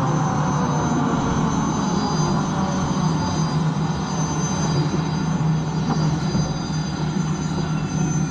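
Unlimited hydroplane's Lycoming T55 turbine engine running with a steady high whine, heard onboard over rushing wind and water noise. Some of its tones fall in pitch over the first three seconds, then hold steady.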